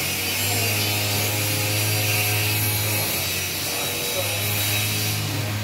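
A steady low mechanical hum with a rasping hiss over it, dropping out for about a second a little past the middle.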